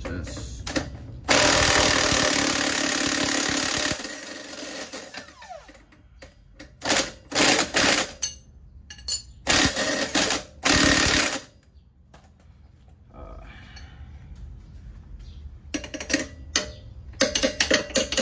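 Impact wrench hammering in bursts on the lower rear strut bolt of a Jeep Grand Cherokee, breaking it loose: one long burst of almost three seconds, then several shorter ones. Sharp metal clicks near the end.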